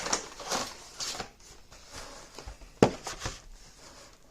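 Handling of trading cards and their cardboard and plastic packaging: scattered rustles and light taps, with one sharp click nearly three seconds in.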